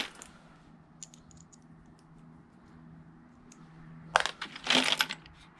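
Loose metal bolts and nuts clinking and rattling as hardware is picked through by hand: a few light clicks about a second in, then a louder burst of rattling about four seconds in. A faint steady hum lies underneath.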